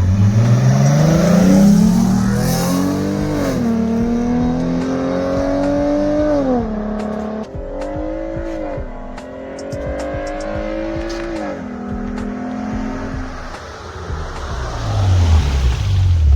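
Dodge Durango's engine accelerating under load, its pitch climbing and then dropping sharply at each upshift of the automatic transmission, three or four times. It eases off and fades near the end, then a lower engine note picks up again.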